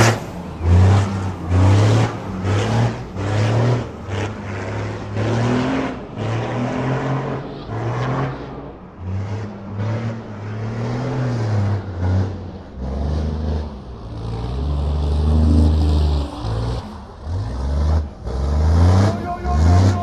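KAMAZ Master rally truck's diesel engine revving hard in repeated short throttle bursts as the truck drifts, the pitch jumping up and dropping away again and again, with one longer, lower pull near the middle.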